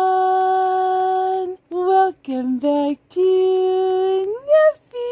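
A woman singing a slow tune in long, steady held notes, with a few shorter notes between them and a rising slide near the end.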